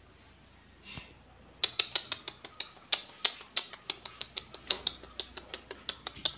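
A dog's claws clicking on a ceramic tile floor as it trots and runs. The clicks come quickly and unevenly, about five or six a second, starting about a second and a half in.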